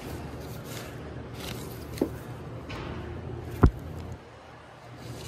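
Cardboard LP record jackets being flipped through in a record crate: sleeves sliding against each other, with two sharp knocks as records fall back against the stack, the louder one a little over three and a half seconds in. A steady low hum runs underneath.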